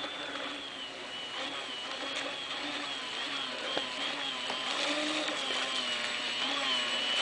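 High-pitched whine of an RC boat's Typhoon 600 electric motor driving its propeller, the pitch wavering up and down as the throttle and load change, growing louder near the end as the boat comes closer.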